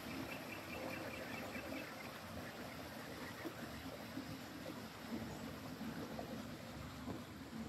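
Faint outdoor background noise, with a faint high chirping in the first couple of seconds.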